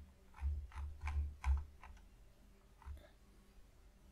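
Faint scattered clicks from operating a computer, about seven in the first three seconds, some with a dull knock on the desk beneath.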